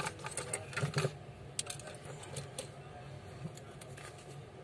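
Small sharp clicks and taps of a smartphone's replacement display and its flex cable being handled and pressed onto the phone's board, a quick cluster in the first second and then a few scattered clicks.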